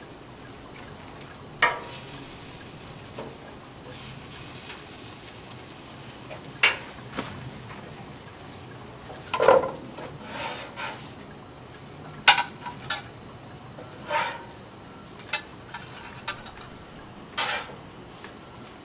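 Metal spatula scraping and clinking on the steel top of a Blackstone flat-top griddle: about a dozen short scrapes at irregular intervals, loudest about halfway through, as beans are scooped and tostada shells lifted off onto a plate.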